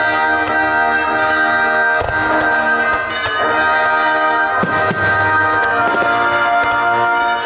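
Loud orchestral music with brass and drums, as played out at a fireworks display. A few short sharp bangs cut through it, most clearly a bit past the middle.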